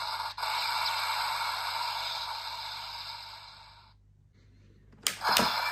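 Kamen Rider Jeanne DX toy transformation belt playing an electronic sound effect: a noisy, hiss-like sound with steady tones through it that fades out over about three seconds. After a short pause, sharp plastic clicks and the start of another sound effect come near the end.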